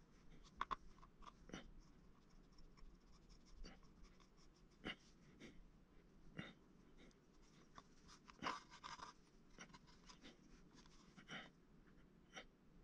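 Faint scattered clicks and scratches of an X-Acto craft knife blade trimming and scraping modelling clay on a thin rod, with a denser run of scraping about two thirds of the way through.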